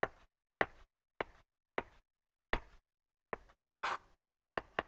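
Chef's knife chopping cilantro on a wooden cutting board: about nine short knocks of the blade hitting the board, a little over half a second apart, one near the end drawn out slightly longer.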